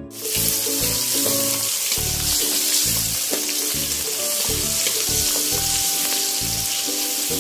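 Aromatics (sliced shallots, garlic, chilies) sizzling steadily in hot oil in a wok, stirred with a metal spatula, over background music with a steady beat.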